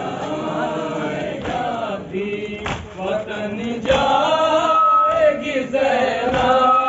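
A crowd of Shia men chanting a nauha (mourning lament) together, growing louder about four seconds in. A few sharp slaps from the chest-beating of matam are heard through the chant.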